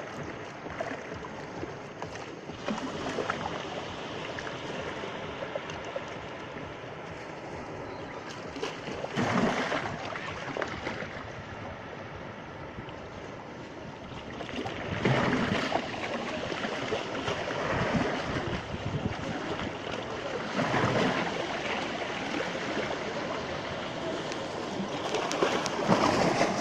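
Black Sea waves washing onto the shore, a louder surge every five or six seconds over a steady wash of water.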